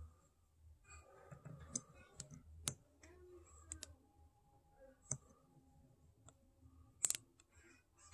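Faint, irregular clicks with light rustling between them: metal multimeter probe tips tapping and scraping against the pins of a small wiring connector, with the sharpest click about seven seconds in.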